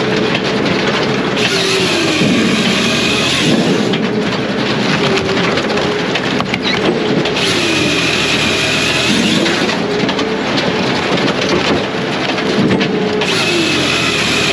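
Brute Force USA 18-24HD diesel firewood processor working: the diesel engine runs steadily, its pitch dipping and recovering again and again under hydraulic load, while its saw chain whines in three bursts about six seconds apart.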